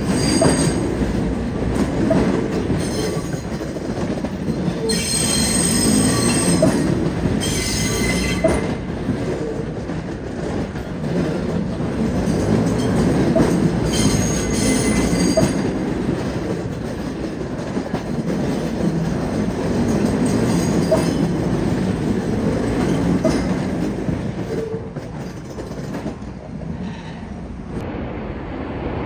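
New York City subway train rolling slowly through yard switches: a steady low rumble of wheels on rail with light clicks over the rail joints. The wheels squeal high-pitched twice, about five and seven seconds in. The rumble grows quieter near the end.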